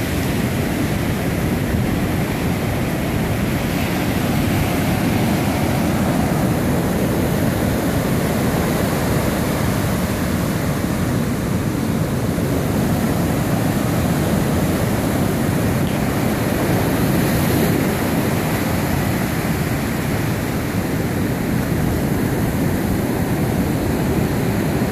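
Steady rushing noise of ocean surf breaking and washing up a sandy beach, mixed with wind rumbling on the microphone.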